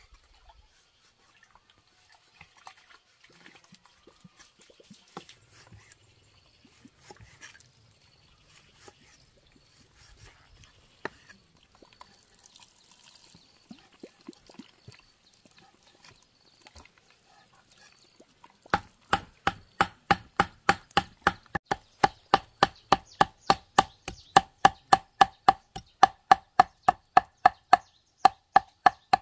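Cleaver on a wooden chopping block: light, scattered cuts at first, then from about 19 s in a fast, steady chopping, about four strokes a second, each with a short ringing note from the blade, as pork belly is minced.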